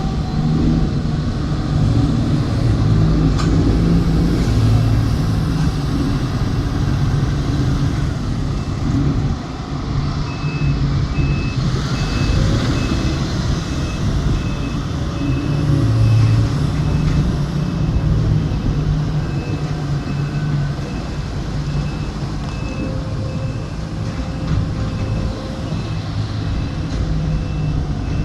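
Large diesel engines of a mining excavator and haul truck running under load, the engine note rising and falling as the machines work. From about ten seconds in, a reversing alarm beeps steadily, one to two beeps a second.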